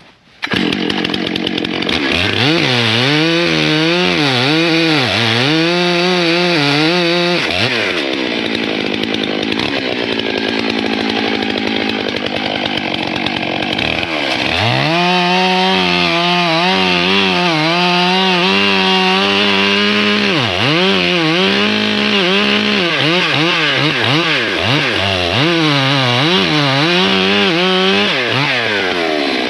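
Stihl MS 661 two-stroke chainsaw running at full throttle and cutting into a tree trunk, its engine pitch repeatedly dipping and recovering as the chain bites. The sound starts abruptly about half a second in.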